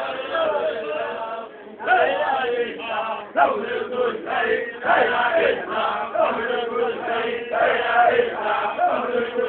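A group of men chanting together in rhythm. The chanting dips briefly about a second and a half in, then comes back louder.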